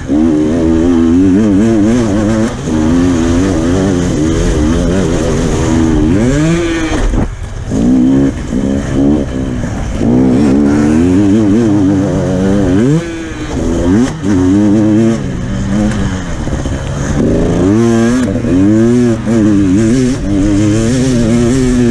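Dirt bike engine heard from an onboard camera while riding, its pitch rising and falling over and over as the throttle is opened and shut. A few times the revs drop sharply off the throttle, then climb fast again.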